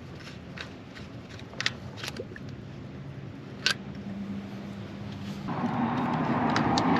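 A few sharp metallic clicks and taps of hand tools. About five and a half seconds in, a power tool starts up and runs steadily, growing louder.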